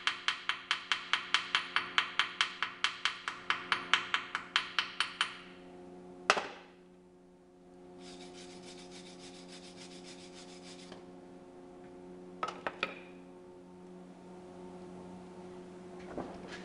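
Rapid, even hammer taps on metal at about five blows a second, stopping about five seconds in, followed by a single sharp knock. A steady hiss then runs for about three seconds, and a few clicks come near the end.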